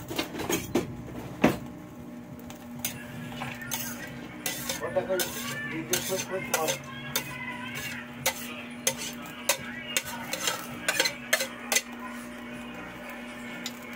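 Metal spatula scraping and tapping against a plastic plate and the rim and bottom of an aluminium wok as minced garlic and ginger are pushed into the pan: a string of sharp clicks and scrapes over a steady low hum.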